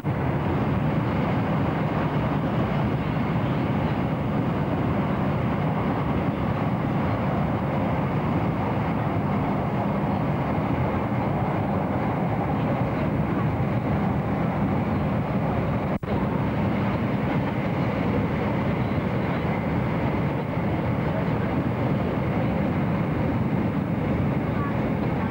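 Steady rumble and hiss of a moving train heard from inside the carriage, with a momentary dropout about two-thirds of the way through.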